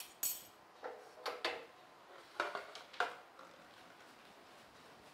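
Glass tea tumblers and steel kitchen pots clinking as they are handled and set on a tray: about six sharp clinks in the first three seconds.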